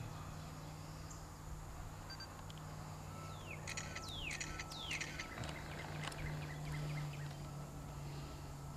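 A songbird singing: three quick down-slurred whistles about three and a half seconds in, followed by a short run of rapid notes, over a steady low hum.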